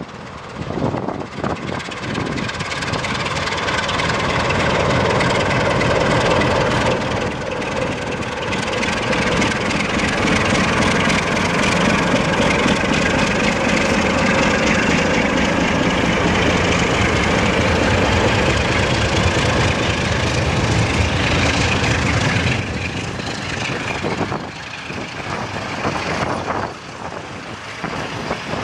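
CFR Class 60 diesel-electric locomotive's twelve-cylinder Sulzer 12LDA28 diesel engine working under load as it pulls a passenger train away from the station. It grows louder as it passes close by, its note rising slightly, then fades near the end as it draws away.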